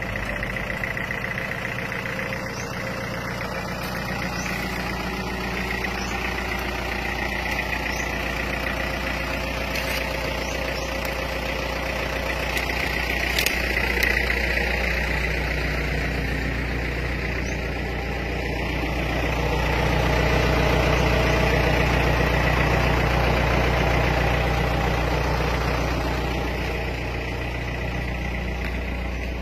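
Diesel engine of a 120 PS medium bus idling steadily, growing louder for a few seconds past the middle, with a single brief click near the midpoint.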